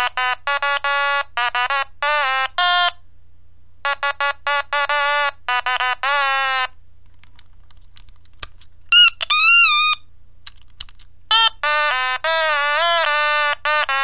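A single-line melody in a bright electronic tone, played in short, quick notes as an arranged tune for a guess-the-song quiz. It breaks off for a few seconds in the middle, where a couple of clicks and a short wavering tone sound, then the melody starts again.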